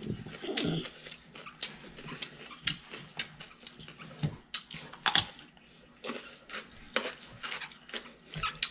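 Eating sounds at close range: chewing and lip smacks, with scattered sharp clicks of fingers and food against plates and bowls as a meal is eaten by hand.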